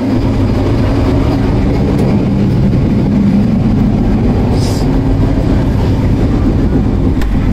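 Steady rumble of a passenger train running, heard from inside the coach corridor, with a brief hiss about halfway through.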